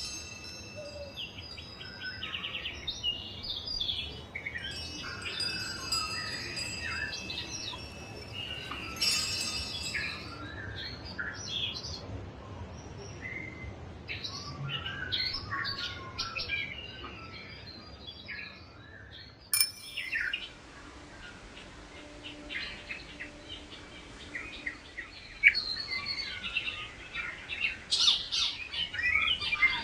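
Many songbirds chirping and trilling together, with wind chimes ringing a few times in the first ten seconds. About twenty seconds in, the birdsong changes abruptly to a different, busier chorus.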